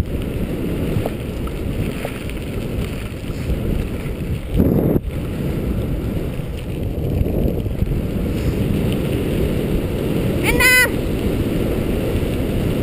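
Dog scooter rolling fast over a gravel trail: steady rumble of the wheels on gravel mixed with wind on the microphone, with a jolt about four and a half seconds in and a short high-pitched squeal near the end.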